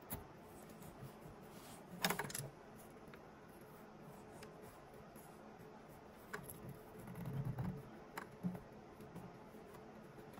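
Quiet handling noises: fingers pressing and smoothing high-temperature Teflon tape against the plastic wall of a 3D printer's waste chute, with a few small clicks and scratches. The loudest cluster comes about two seconds in.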